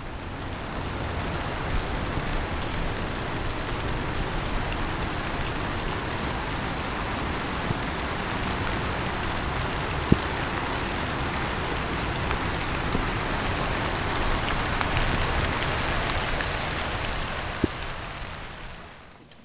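Steady rain falling, with an insect chirping in even pulses, about two a second, and a couple of sharp drips; the whole fades out near the end.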